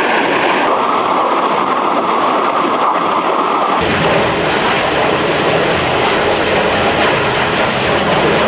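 Rockets launching from a multiple rocket launcher: a loud, continuous rushing blast of rocket exhaust. About four seconds in it turns fuller and deeper, with a heavy low rumble.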